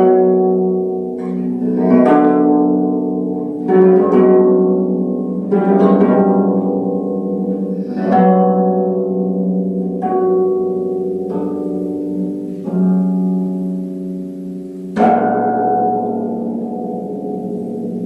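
Concert harp played solo: sparse plucked notes and chords, each left to ring and fade, a new one every second or two over a low note that keeps sounding. About fifteen seconds in comes a sharper, louder pluck.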